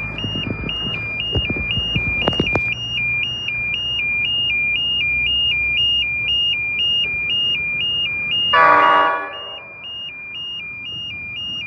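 Level crossing warning alarm sounding continuously, an electronic tone alternating between two pitches. About eight seconds in, the approaching Pacific National NR class locomotive sounds one loud horn blast lasting about a second.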